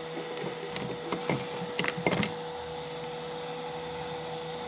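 A few light clicks and taps of small items being handled, over a steady hum.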